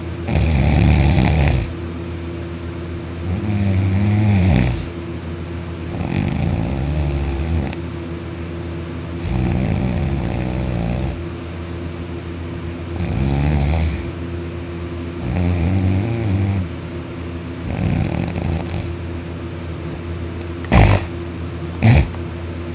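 Very loud open-mouthed snoring: seven long snores, one every two to three seconds, over a steady low hum. Near the end come two sharp knocks about a second apart, louder than the snores.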